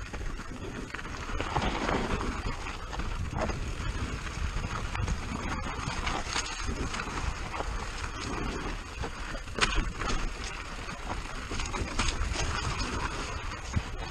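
Downhill mountain bike rolling fast over a dry dirt and rock trail: a steady rumble of tyres on gravel and wind buffeting the microphone, with the bike rattling and a few sharp knocks from rocks.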